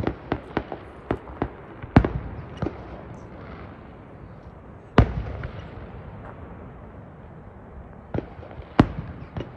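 Fireworks going off: a rapid run of sharp bangs in the first couple of seconds, then single louder bangs about two seconds in, about five seconds in and near the end, each trailed by a short echo.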